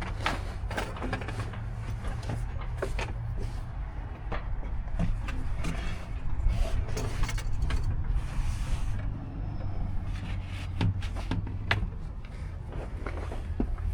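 Scattered clicks and knocks of parts being handled and fitted during engine reassembly, over a steady low hum. A brief hiss comes about halfway through.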